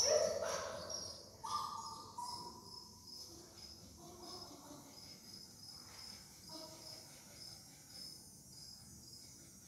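A faint, high-pitched insect chirp repeating evenly, about three times a second, over quiet room tone.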